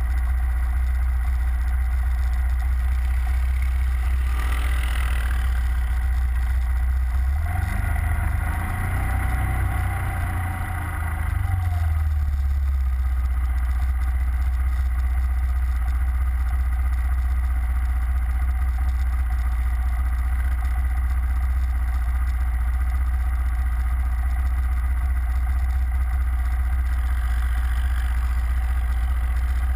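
ATV engine idling steadily close by. From about 8 to 12 seconds in, another track-equipped ATV drives past close, its engine rising and then falling away.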